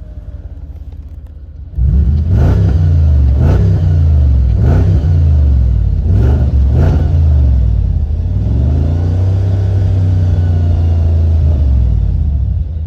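Audi S5's 4.2-litre V8 on its stock exhaust idling, then, from about two seconds in, revved in five quick throttle blips, each rising and falling back. It is then held at higher revs for about four seconds before dropping back to idle near the end.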